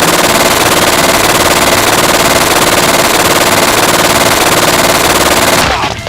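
Rapid, continuous automatic gunfire, most likely a machine-gun sound effect, loud and unbroken until it dies away near the end.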